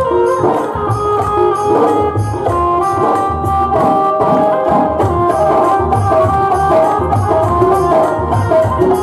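Instrumental passage of a Hindu devotional bhajan: a melody of held notes stepping from pitch to pitch over a steady hand-drum rhythm.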